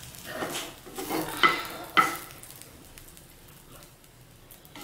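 Wooden spatula pressing and scraping a buttered sandwich in a non-stick frying pan: a few short scrapes and taps in the first two seconds, then faint sizzling as the bread toasts in the melted butter.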